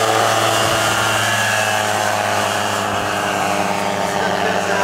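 Weight-shift microlight trike (motorised hang glider) flying past low, its engine and rear pusher propeller giving a loud, steady hum.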